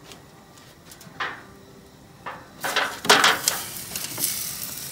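A few light knocks, then about halfway through pieces of meat start sizzling as they are put into a hot aluminium foil tray on a gas grill, the crackle coming in spurts.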